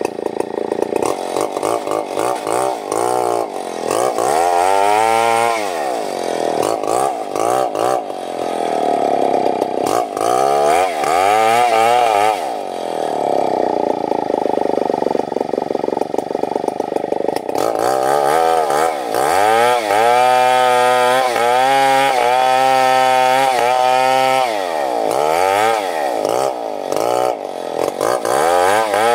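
Gasoline chainsaw cutting wood, its engine pitch dropping and climbing back again and again as the chain loads up in the cut and frees, with a steadier high-speed stretch about halfway through.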